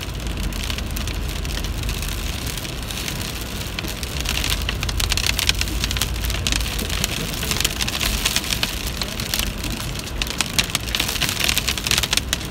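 Hailstones pelting a vehicle's windshield and body, heard from inside the cabin as a dense, steady clatter of small ticks that grows heavier in spells. The vehicle's low rumble runs underneath.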